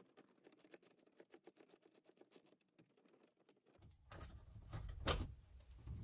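Faint scattered light clicks. About four seconds in, a low rumble with a few knocks and rustles begins: handling noise.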